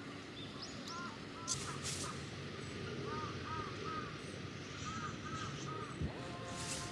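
Crows cawing: a series of short calls in twos and threes over a steady outdoor hiss, with a few faint clicks.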